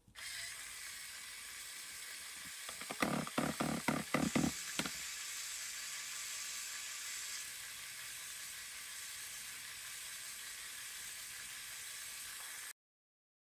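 LEGO Power Functions small motor driving the LEGO 10244 Fairground Mixer ride: a steady faint whirring hiss. A cluster of plastic clicks and clacks comes about three to five seconds in, and the sound cuts off shortly before the end.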